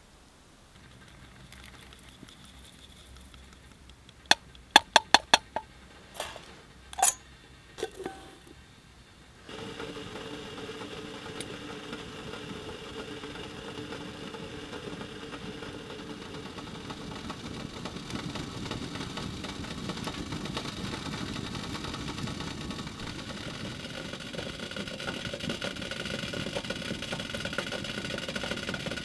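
A quick run of sharp clicks and a couple of clunks, then from about a third of the way in a steady hiss and rumble with faint singing tones that slowly grows louder: a metal kettle heating on a small wood stove as the water nears the boil.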